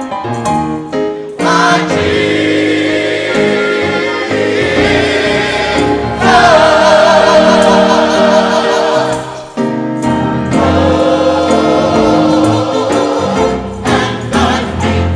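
Gospel choir of women's and men's voices singing held chords. The singing swells to its loudest passage, with wavering high voices, about six seconds in, dips briefly near ten seconds, then carries on.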